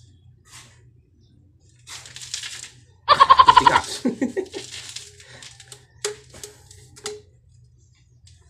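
A man straining to force a PVC pipe into a stiff fitting. Plastic rubs and scrapes, a short loud strained vocal sound comes about three seconds in, and there are a couple of sharp plastic clicks near the end.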